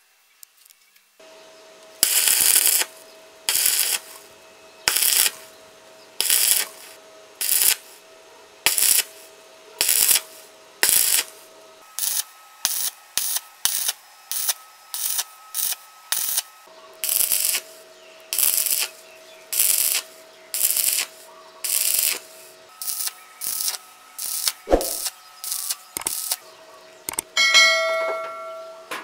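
Stick-welding arc on thin-walled steel tube, crackling in short bursts as the electrode's arc is struck and broken again and again in a stitch technique: roughly one burst a second, quicker, about twice a second, in the middle stretch, over a faint steady hum. Near the end a short chime with several ringing tones.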